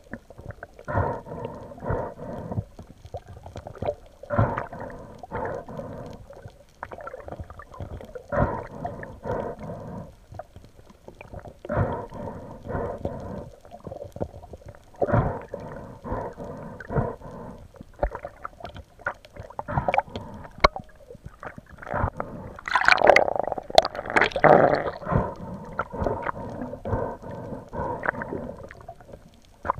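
Muffled underwater noise heard through a camera's waterproof housing: irregular water sloshing and dull knocks. A louder burst of noise comes a little past two-thirds of the way through.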